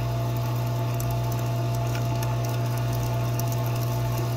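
TaoTronics nugget ice maker running while making ice: a steady, somewhat loud low hum with fainter steady tones above it, almost like a dishwasher running.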